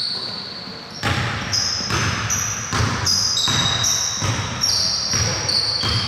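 A basketball being dribbled on a gym floor, a steady run of bounces about one every half-second to two-thirds of a second, starting about a second in.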